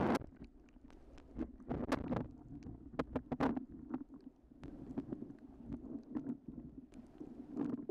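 Muffled underwater sound picked up by a camera submerged on a reef: a low rumble of moving water with scattered sharp clicks and crackles, swelling louder about two seconds and three and a half seconds in.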